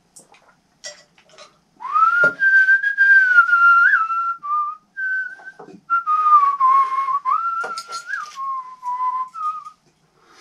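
A man whistling a tune through his lips: one clear pitch stepping and gliding between notes in three phrases, starting about two seconds in. A few knocks of a metal mug and small objects being set down on a wooden table come in between.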